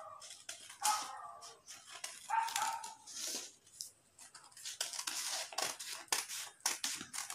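Scissors snipping through folded paper in a series of short cuts, with the paper rustling. Two brief pitched sounds stand out about one and two and a half seconds in.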